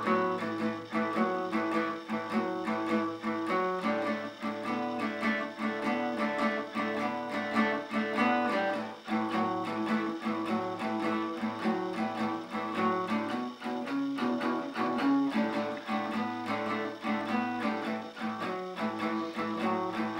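Acoustic guitar playing a twelve-bar blues shuffle in A: two fretted notes alternating over an open bass string in a steady rhythm, moving to other strings for the chord changes partway through.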